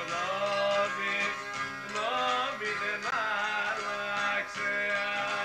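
Background music: a melody line that bends and slides in pitch over a steady held backing.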